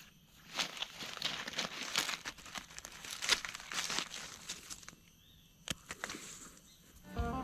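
Dry fallen leaves crackling and rustling under gloved hands as they dig a mushroom out of the leaf litter, dense and irregular for about four seconds. It then goes quieter, with one sharp tick, and guitar music starts right at the end.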